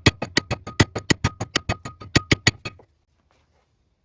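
Rapid, even hammer taps, about seven a second, driving a bearing onto a wood lathe's spindle shaft; each strike rings with a metallic tone. The tapping stops about two-thirds of the way through, as the bearing seats.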